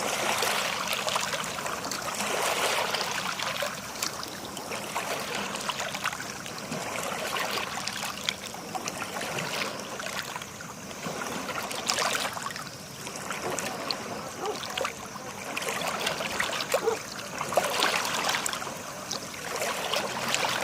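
Sea water lapping and trickling, swelling and ebbing every few seconds, with small splashes and drips.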